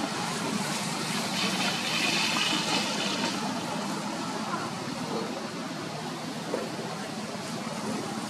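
Steady outdoor background noise, with a high-pitched buzzing tone lasting a couple of seconds about a second in.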